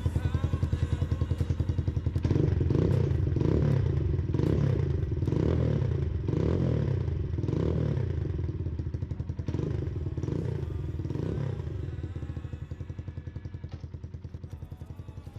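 Kawasaki KLX 150 single-cylinder four-stroke motorcycle engine breathing through a T-4 Pro Pipe aluminium aftermarket exhaust. It idles, is blipped in about nine short revs roughly once a second, then drops back to idle.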